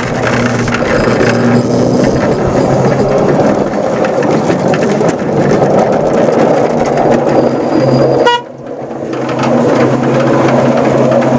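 A 5-inch gauge ride-on Whitcomb model locomotive running on its track, with a steady motor hum and the rumble of wheels on rail. About eight seconds in there is a very short high note. The running noise then drops sharply and builds back up over about a second.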